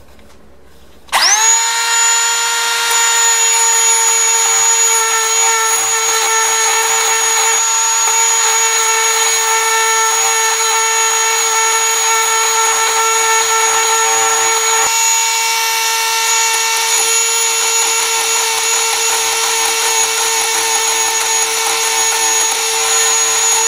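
Small high-speed rotary tool with a grinding stone spinning up about a second in and then running at a steady high whine, grinding excess weld off the jaws of a pair of lineman's pliers to reshape the cutting edge.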